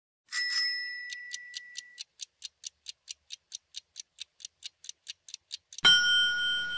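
Countdown-timer sound effect: a ringing chime, then a fast run of clock ticks, about six a second, ending in a sudden loud ringing alarm as the timer runs out.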